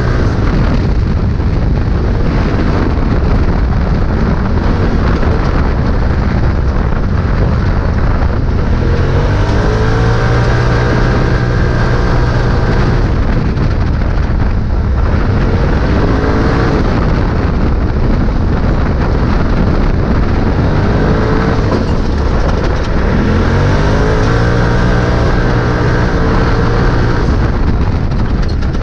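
Polaris RZR side-by-side's engine running hard at race pace, heard from on board, its pitch climbing and dropping again and again as it accelerates and backs off, over a constant rush of noise.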